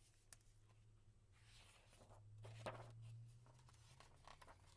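Faint rustling and soft clicks of a hardcover picture book being opened and its paper pages handled, over a low steady hum.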